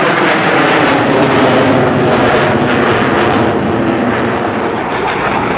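Jet noise from a formation of F/A-18 Hornet fighters flying overhead: a loud, steady rushing that eases slightly toward the end.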